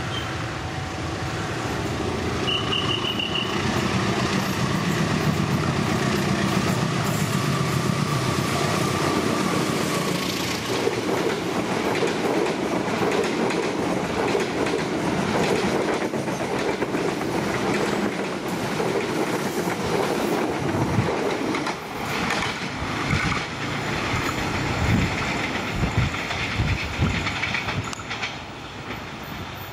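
A CC 201 diesel-electric locomotive passes with its engine running, followed by a long train of passenger coaches rolling by. The wheels clickety-clack over the rail joints, with a run of knocks toward the end as the last coaches go past and the sound fades.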